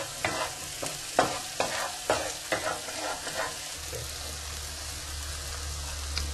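Butter, capers and lemon juice sizzling in a hot sauté pan, with rockfish fillets frying alongside. A utensil stirs the sauce in short strokes about two a second for the first three seconds or so. A steady low hum comes in about four seconds in.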